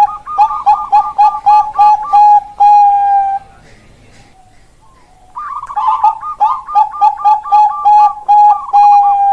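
Zebra dove of the Bangkok-bred perkutut line singing two song phrases. Each phrase is a quick run of about eight cooing notes ending in one long held note; the second phrase begins about five seconds in.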